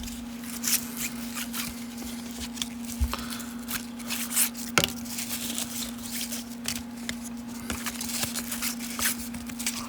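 Baseball trading cards being handled and flipped through one at a time: a run of light, irregular clicks and snaps of card stock sliding over card, over a steady low hum.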